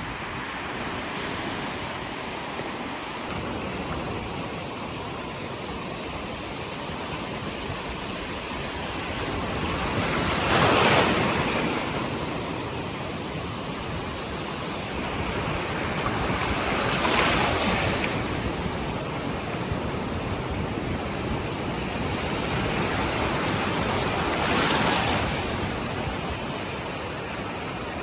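Ocean surf on a beach: a steady wash with three larger waves breaking about six to eight seconds apart, each swelling and fading over a second or two.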